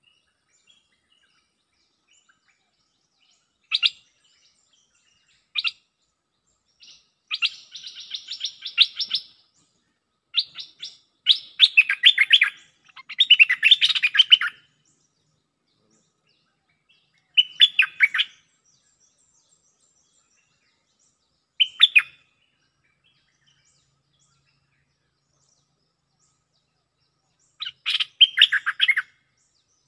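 Bulbuls calling in bursts of quick, bubbly chattering phrases, separated by silent gaps, with the longest, densest run in the middle: a caged decoy bulbul trading calls with a wild one.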